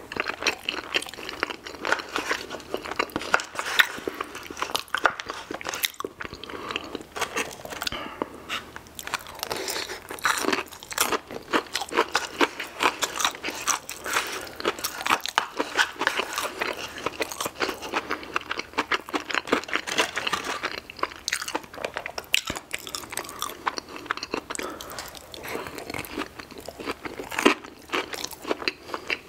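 Close-miked chewing and biting of a person eating spoonfuls of mac and cheese and crispy fried chicken nuggets, a dense, irregular run of mouth clicks and crunches.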